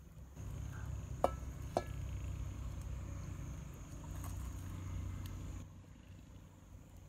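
A metal wok clanks twice against the stones of a wood-fire hearth as it is set down, each clank ringing briefly. A low rumble runs underneath and stops abruptly near the end.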